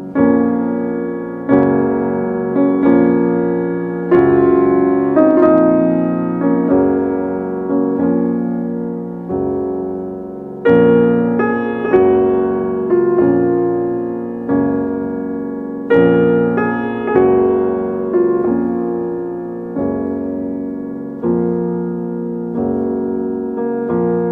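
Background piano music: slow chords struck about once a second or so, each ringing and fading.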